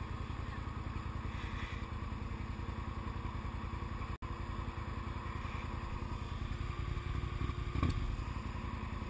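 Can-Am Outlander 1000 ATV's V-twin engine idling steadily close by, with one brief knock near the end.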